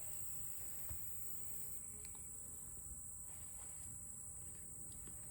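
Steady high-pitched chorus of insects trilling.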